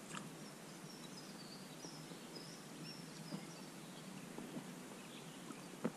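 Faint warbling song of a small songbird for the first few seconds, over a steady low outdoor hiss of river and forest. A single sharp knock near the end.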